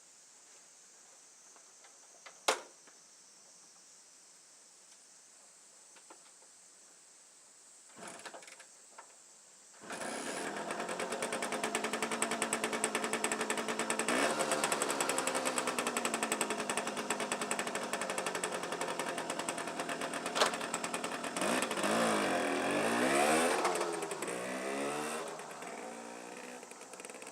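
A sharp click, then about ten seconds in a small engine starts running with a rapid, even beat, its pitch rising and falling as it revs, and fades near the end.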